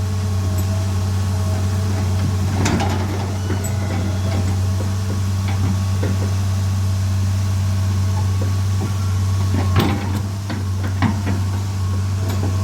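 An engine running steadily with a low hum, with a few sharp metal clanks: one about three seconds in, the loudest about ten seconds in, and another a second later.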